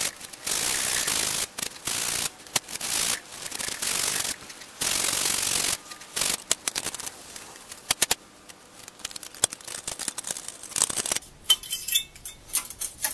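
Rusty flywheel of a Briggs & Stratton lawn-mower engine being scrubbed by a gloved hand, in strokes of harsh hiss about a second long. About six seconds in these give way to scattered light clicks and taps as a thin rod probes around the engine.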